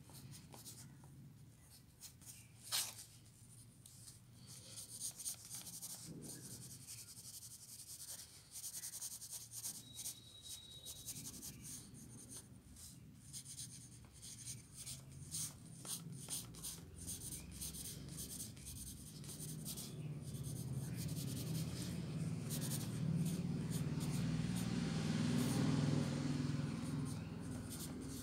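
Pencil sketching on paper: repeated short scratchy strokes, with a sharp click about three seconds in. A low rumble builds up in the second half and becomes the loudest sound near the end.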